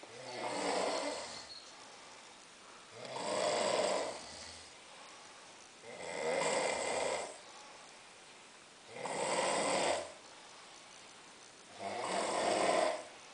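A young man snoring in a deep sleep after heavy drinking: five long snores about three seconds apart, with quiet breathing pauses between them.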